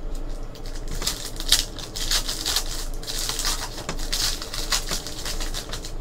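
Crinkling and crackling of a trading card pack's wrapper as it is torn open and peeled off the cards, in a quick, irregular run of crackles.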